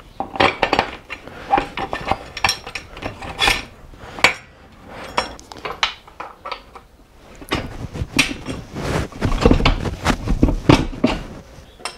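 Metal parts clinking and knocking as the rear wheel spindle of a Kawasaki KLE500 is worked back through the swingarm, adjuster plate and brake caliper carrier. The clatter turns denser, with a low rumble, in the last few seconds.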